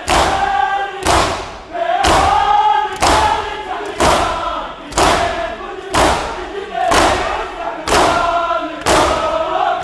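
Matam: a large crowd of men striking their bare chests in unison, about once a second, ten strikes in all. Between the strikes the crowd chants a noha, an Urdu lament.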